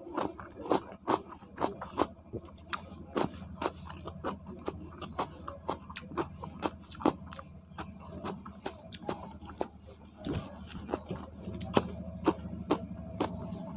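A person chewing food close to a clip-on microphone: an irregular run of sharp, wet mouth clicks and smacks, about two to three a second, over a low steady hum.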